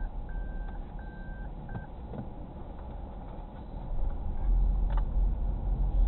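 A car's seatbelt reminder chime beeping, three short same-pitched beeps in the first two seconds, then stopping. From about four seconds in, a low rumble of the car's engine and tyres rises as the car pulls away.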